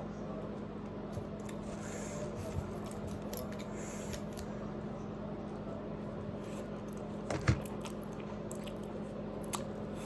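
Close-up eating of spicy instant noodles: quiet chewing and small mouth and utensil clicks, with a sharper knock about seven and a half seconds in.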